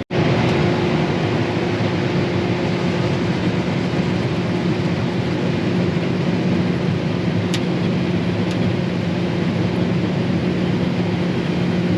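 Combine harvester running steadily while harvesting soybeans: a constant machine drone with a steady low hum over broad rushing noise.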